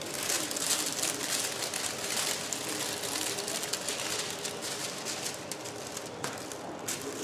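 Clear plastic film on a diamond-painting canvas crinkling and rustling as hands smooth and lift it, in a steady stream of small irregular crackles.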